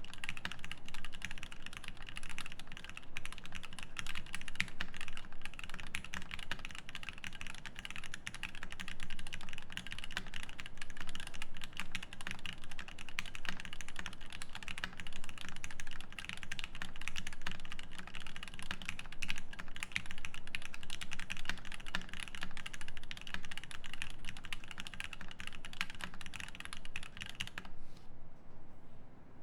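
Fast continuous typing on a Godspeed75 mechanical keyboard with a brass plate, Krytox-lubed Zeal Turquoise Tealio tactile switches and GMK Ashes keycaps: a dense, even run of keystrokes that stops about a second and a half before the end.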